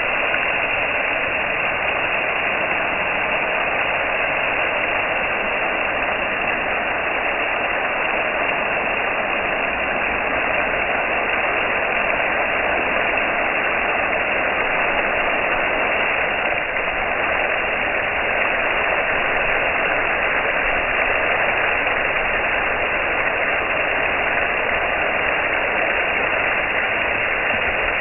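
Steady rushing hiss of water spraying from a garden hose, unbroken and even in level.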